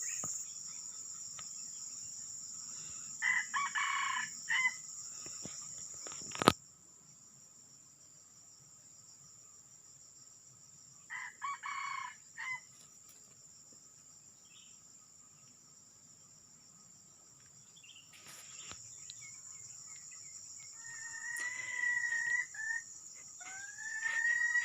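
Junglefowl crowing: two short crows several seconds apart, over a steady high insect drone, with a sharp click about six seconds in and a few rising whistle-like calls near the end.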